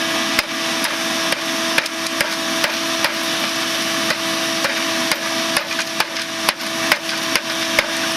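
Hammer blows on the cast engine part of a weed eater, about two strikes a second against a steel plate, breaking the brittle magnesium-rich metal apart. A steady hum runs underneath.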